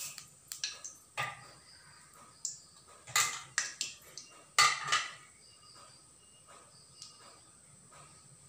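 Steel kitchen utensils clattering: a wire strainer and spoon clinking and knocking against a steel bowl and the wok rim, a quick run of sharp clinks over the first five seconds, then only a few faint clicks.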